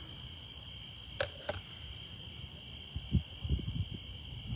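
A steady, high trill of night insects, with two short clicks about a second in and low rustling knocks in the second half.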